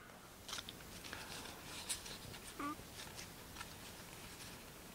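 Faint handling of a stack of trading cards: light slides and ticks as the cards are picked up and fanned out in the hands. About halfway through comes one short, faint sound that falls in pitch.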